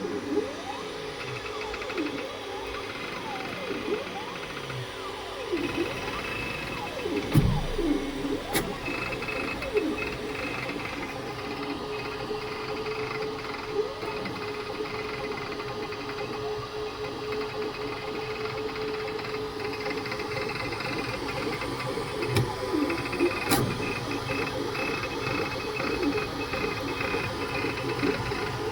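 Creality K2 Plus 3D printer printing: its stepper motors whine in pitches that glide up and down as the toolhead changes speed and direction, over a steady hum, with a few sharp clicks and a thump about seven seconds in. The owner finds the noise unusual and wonders whether a slower print speed is the cause.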